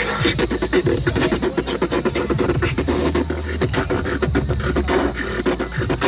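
Beatboxing into a handheld Bluetooth karaoke microphone: rapid drum-like clicks and snares in a fast rhythm, with a held low bass note in the middle.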